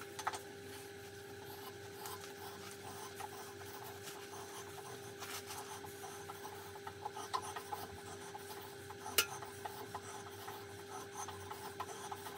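M24 × 3 mm hand tap turned with a tap wrench, cutting a thread into a hole in a cast-iron milling machine base: faint rasping and scraping, with a few sharp clicks.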